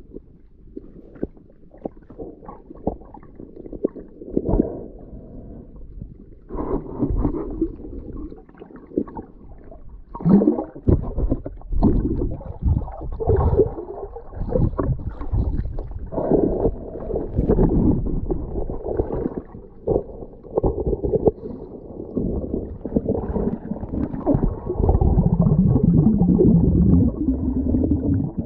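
Muffled water sloshing and gurgling picked up by a camera held underwater, with irregular knocks and rumbles, louder and steadier near the end.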